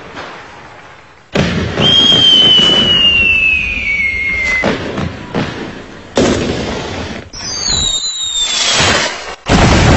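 Fireworks going off: sudden loud bursts about a second in, around six seconds and near the end, with a whistle gliding down in pitch after the first burst and a pair of whistles, one rising and one falling, after the second.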